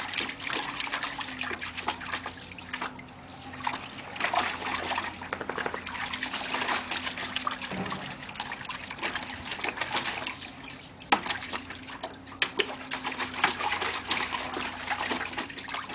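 Border collie splashing and pawing in a shallow plastic paddling pool: water sloshing and spattering, with a couple of brief lulls.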